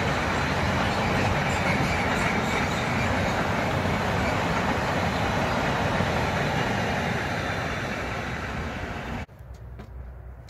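Freight train of empty double-deck car-carrier wagons rolling past on the line, a loud, steady rumble and rattle of wheels on rail that eases off as the last wagons go by. About nine seconds in it cuts off abruptly to a much quieter background.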